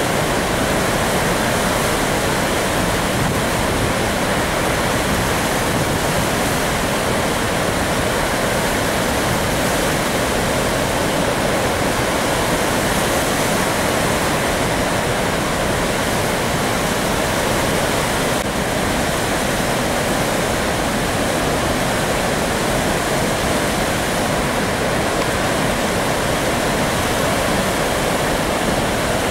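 Floodwater pouring through the open crest gates of a large dam's spillway as the full reservoir is drained: a steady, unbroken rush of falling water.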